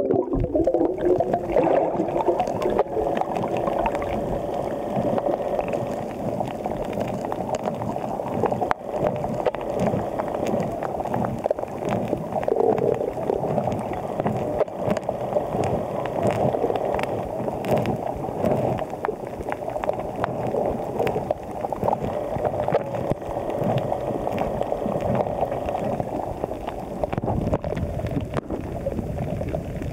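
Underwater noise picked up by the camera: steady gurgling and sloshing of water, with a constant crackle of small clicks.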